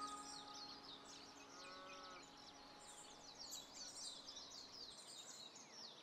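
Faint chorus of many small birds chirping and twittering at once, overlapping short high calls. The last notes of the background music die away in the first two seconds or so.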